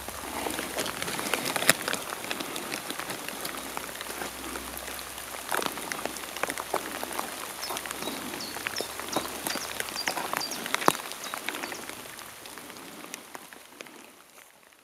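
Rain pattering on leaf litter and rock, with irregular sharper drips and a few faint high chirps; it fades out over the last few seconds.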